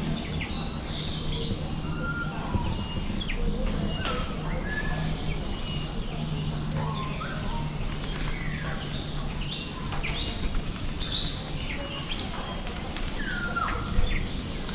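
Many birds calling at once, a busy mix of short whistles, chirps and squawks. A low steady hum underneath stops about ten seconds in.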